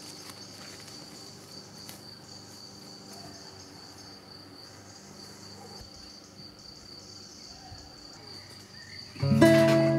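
Crickets chirring in one steady high-pitched trill. Music starts loudly near the end.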